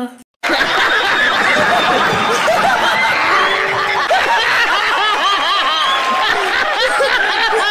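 Inserted laughter clip: a man laughing hard together with an audience, many voices laughing at once. It starts abruptly after a brief silent gap about half a second in.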